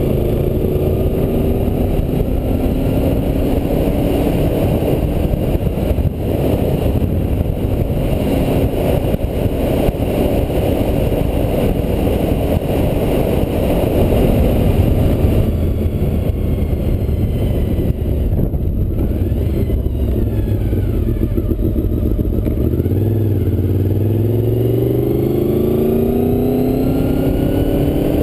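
Honda VFR motorcycle's V4 engine running under way, buried in heavy wind rumble on a GoPro microphone behind the open, non-waterproof backing. Near the end the engine pitch rises steadily as the bike accelerates.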